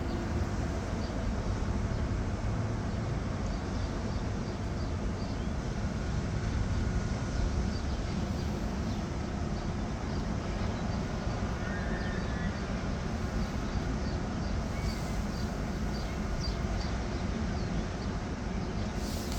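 Steady outdoor background noise with a continuous low rumble, like traffic or surf, and no speech.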